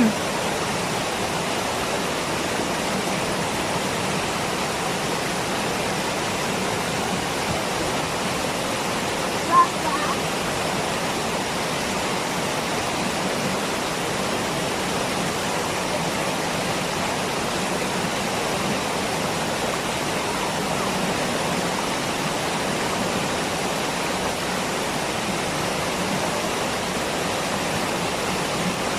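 Waterfall rushing steadily, an even, unbroken roar of falling water. About ten seconds in, a brief short sound rises above it.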